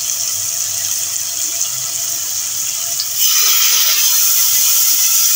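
Onion, tomato and spice masala sizzling in hot oil in a metal pot. About three seconds in, a little water goes into the pan and the sizzle turns louder, as the water hits the hot oil.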